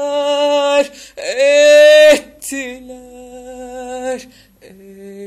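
A woman singing unaccompanied, holding long notes on one drawn-out word of a Turkish song: three sustained notes, the second swelling loudest, the third wavering, then a softer, lower note near the end.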